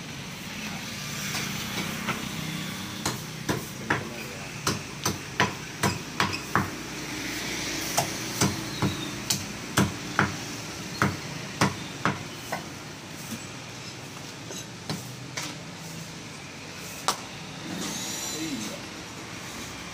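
Meat cleaver chopping chicken on a wooden tree-stump block: a run of sharp chops about two a second, starting a few seconds in and thinning out to a few scattered strokes toward the end.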